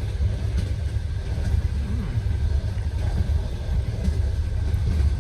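Steady low rumble of a moving passenger train, heard from inside a closed sleeper compartment.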